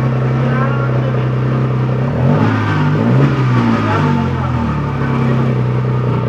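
Petrol car engine driving a homemade concrete power trowel, running steadily, then revved up about two seconds in and dropping back to its steady speed near the five-second mark.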